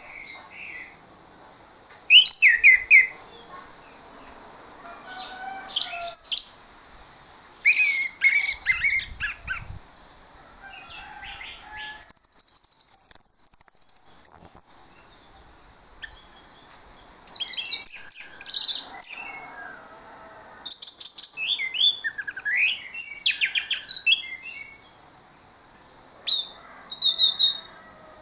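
Orange-headed thrush singing loud, varied song: bursts of high-pitched whistles and quick chattering notes with short pauses between them. The bird is running through its repertoire of learned and mimicked phrases, and there is one longer unbroken run about halfway through.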